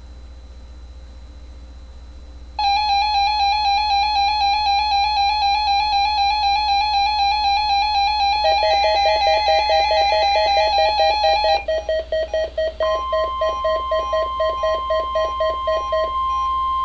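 Midland WR-100 weather radio sounding its alert alarm for a NOAA Weather Radio test: loud electronic beeps at about three a second, the pitch dropping lower partway through. About thirteen seconds in, a steady 1050 Hz weather alert tone from the broadcast starts and holds, over a low electrical hum.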